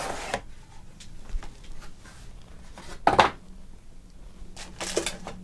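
Hands handling cardboard packaging: a sliding scrape that stops shortly after the start, scattered light taps and rustles, and a loud brief rustle or knock about three seconds in, with a smaller one near the end.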